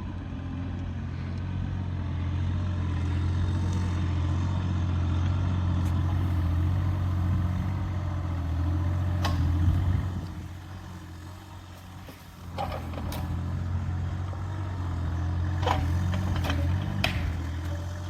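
Doosan DX35z mini excavator's diesel engine running steadily, falling off for a couple of seconds about ten seconds in and then coming back up. A handful of short sharp knocks and cracks sound over it in the second half.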